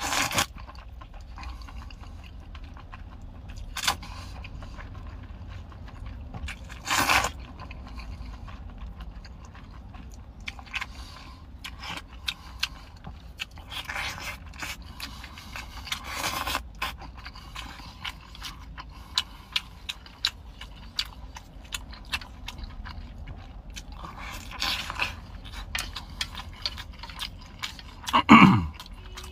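Close-up eating sounds of noodles in spicy broth: several loud slurps of noodles, the loudest near the end falling in pitch, with wet chewing and small mouth clicks in between.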